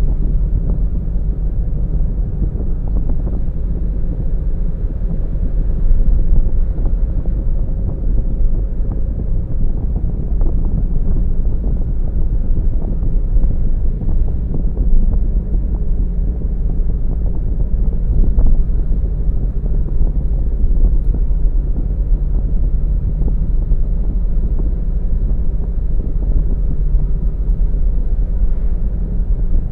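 Steady low rumble of a car driving along a road: engine and tyre noise with some wind buffeting.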